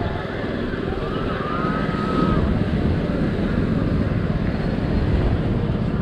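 Wind buffeting the microphone as a steady low rumble, with faint voices of people around.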